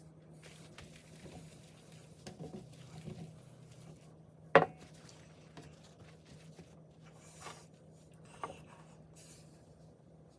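Light knocks and rubbing of small hard objects over a steady low hum, with one sharp clink about halfway through and a smaller one near the end.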